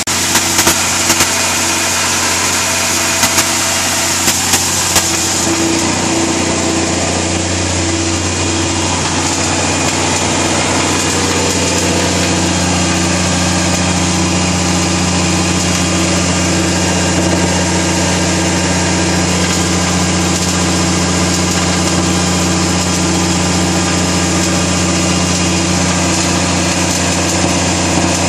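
Freshly overhauled Detroit Diesel Series 60 inline-six diesel genset engine running at a steady speed.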